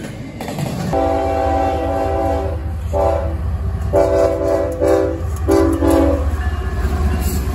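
A CSX diesel locomotive's horn sounds a chord of several notes in a series of blasts: one long, one short, then two more. Under the horn runs the steady low rumble of the locomotive and train. For about the first second, a passing freight train's wheels rumble before the horn begins.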